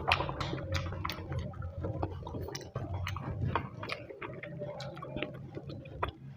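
Close-up chewing and mouth smacking while eating curry and rice, with many short irregular wet clicks.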